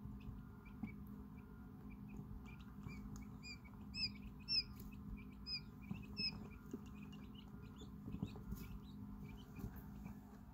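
Hours-old quail chicks peeping: many short, high cheeps, with a run of louder peeps from about three and a half to six and a half seconds in. A low steady hum lies underneath.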